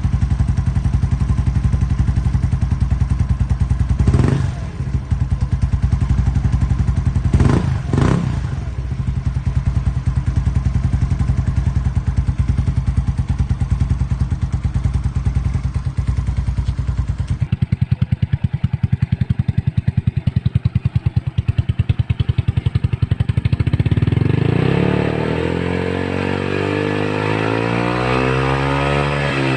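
Yamaha Mio scooter's small single-cylinder four-stroke engine idling through an aftermarket exhaust, with two quick throttle blips in the first several seconds. Near the end the engine is revved up and down repeatedly.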